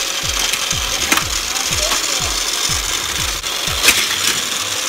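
Motorized Hot Wheels Fast Lane Mega Loop track set running, with a steady whirr and die-cast toy cars rattling over the plastic track. A low swooping beat repeats about twice a second, and there are a few sharp clacks, the loudest near the end.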